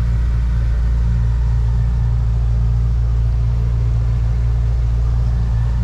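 Boat motor running steadily while cruising, a low even drone heard from inside the boat's cabin.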